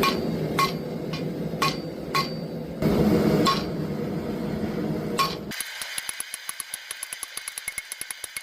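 A blacksmith's hammer striking hot steel on an anvil: six single ringing blows with pauses between, over a steady low rush. About five and a half seconds in, the rush stops and a fast, even run of light clicks, about six a second, takes over.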